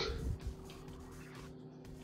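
Quiet background music with faint rustling of trading cards being slid and flipped by gloved hands.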